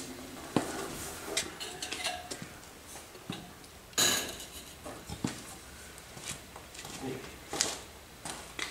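Metallic clinks and taps as a long metal straight edge is handled and laid across a car's hood, with one sharp clack about four seconds in and a few lighter taps around it.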